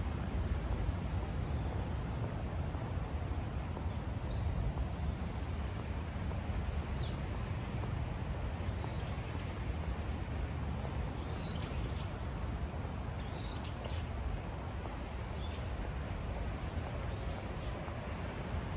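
Steady low outdoor rumble, with small birds giving short high chirps every few seconds.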